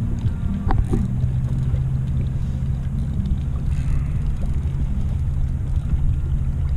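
Outboard motor running at a steady low idle, a constant low hum, over low rumbling wind on the microphone. A short click comes about a second in.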